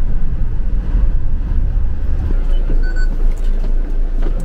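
Low rumble of a bus's engine and tyres heard from inside the cabin. It eases off about two seconds in as the bus comes to its stop. A couple of short electronic beeps follow near the end.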